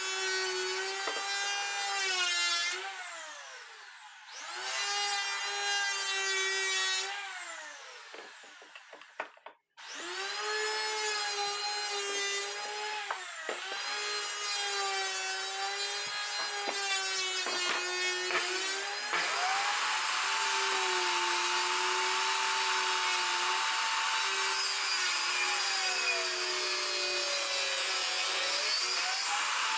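Bosch table saw's motor running with a high whine, winding down and starting up again twice in the first ten seconds. From about twenty seconds in, the blade cuts wood with a loud, steady hiss, and the motor's pitch dips under the load near the end.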